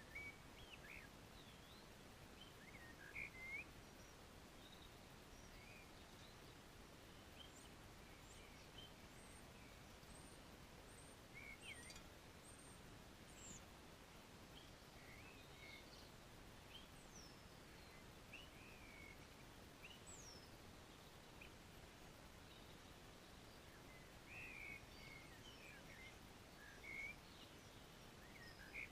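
Faint, scattered bird chirps and short whistles over a steady outdoor hiss, with small clusters of calls about three seconds in and again near the end.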